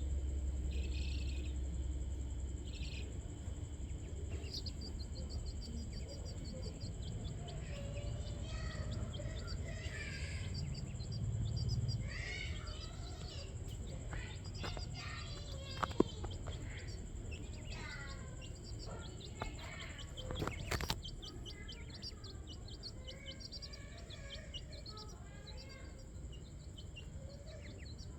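Bird chirps and calls, many short twittering notes, busiest in the middle, over a steady high-pitched whine and a low background rumble. Two sharp clicks stand out in the second half.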